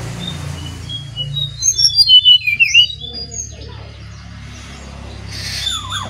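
Brown-chested jungle flycatcher (SRDC) singing: a quick run of short whistled notes and sliding chirps, loudest around two to three seconds in, with a falling note near the end, over a steady low hum.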